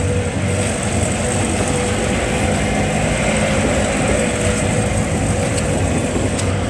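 Jeep engine running steadily, with a low hum under constant road and wind noise.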